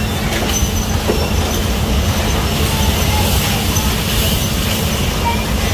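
Electric bumper cars running around the ride's floor: a continuous rolling rumble of wheels and drive motors, with a steady low hum underneath.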